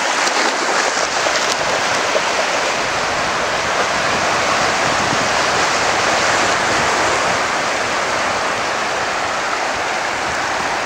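Small sea waves breaking and washing through shallow water, a steady rushing surf.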